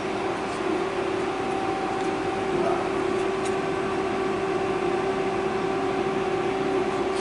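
Steady mechanical hum holding one constant mid-pitched tone, with a few faint light clicks as aluminum bar stock is set into the lathe chuck.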